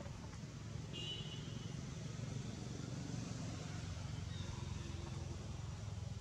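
Steady low outdoor background rumble, with a short high chirp about a second in.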